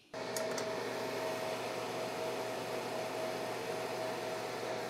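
Cloudray 50-watt fiber laser engraver running, burning away a chip's black epoxy casing: a steady hiss with a constant mid-pitched tone.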